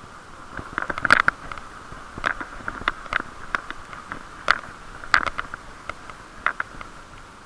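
Irregular clicks and taps picked up through a chest camera's waterproof case on a moving bicycle, over a steady muffled noise; the case makes the sound boxy and dull.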